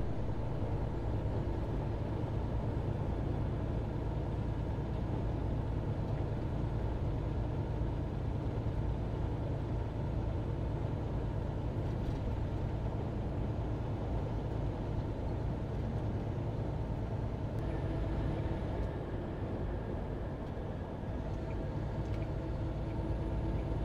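Semi-truck cruising at highway speed, heard from inside the cab: a steady low drone of engine and road noise.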